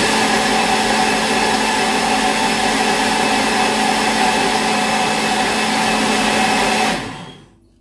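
Compact countertop blender running at one steady speed, blending a green drink until smooth. It shuts off about seven seconds in and winds down.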